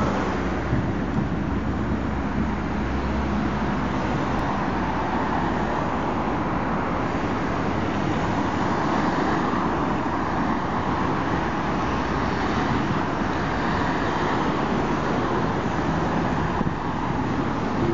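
Steady road traffic noise: cars driving past on a wide multi-lane city road, an even rumble and tyre hiss with no single event standing out.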